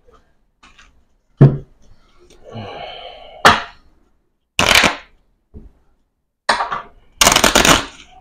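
A deck of playing cards being gathered off a tabletop and shuffled by hand: a knock against the table, then three short bursts of rapid card clicking, the longest lasting nearly a second near the end.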